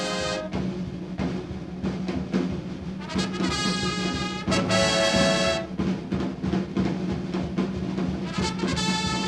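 Background music with long held notes over a steady low tone.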